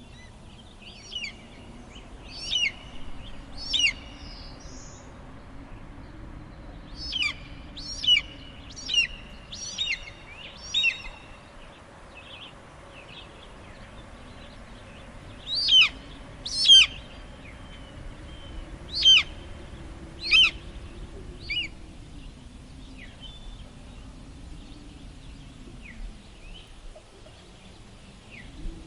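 Eagle calls: short, high, piping cries in bursts of two to five about a second apart, the loudest in a pair about halfway through. Beneath them, a low wind drone swells and fades.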